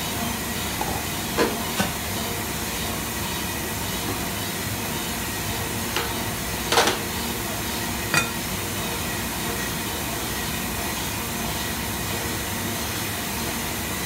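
Industrial coolant-sludge vacuum and filter machine running with a steady hiss of air, its second filter stage drying the sludge. A few sharp knocks come through it, the loudest about seven seconds in.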